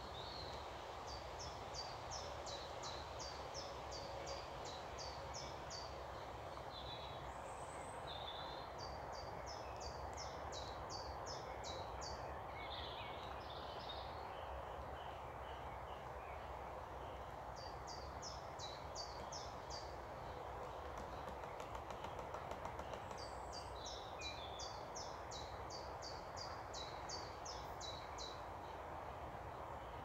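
A small songbird singing phrases of quick, high, thin notes, about three a second, each phrase a few seconds long and repeated four times. A few other short chirps come in between, over a steady low rushing background.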